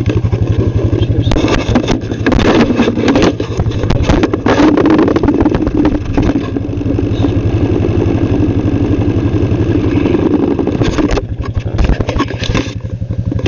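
A vehicle engine idling steadily close by, with the rustle of a jacket being pulled on and handled over it, loudest in stretches about two and four seconds in and again near the end.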